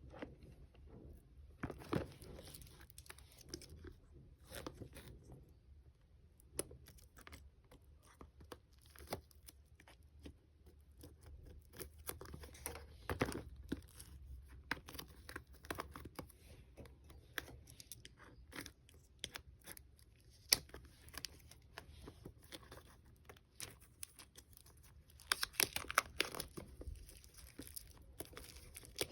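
Packaging being torn open and crinkled by hand: irregular crackles, rustles and taps, with a denser run of crinkling near the end.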